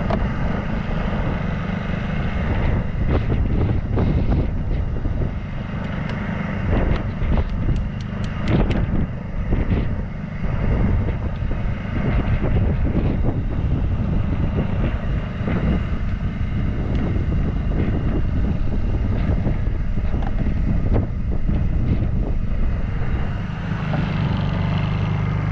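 Portable Honda generator engine running steadily while it charges batteries, with wind buffeting the microphone. A run of knocks comes about three to nine seconds in.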